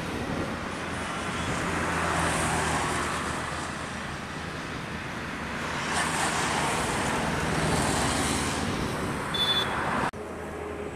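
Airbus A321 jet airliner on final approach just after passing low overhead: a steady broad engine roar that swells twice as the aircraft moves away. It drops out abruptly near the end.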